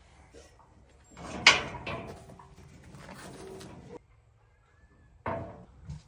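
A sharp bang about a second and a half in, followed by a couple of seconds of clattering, then another short knock near the end.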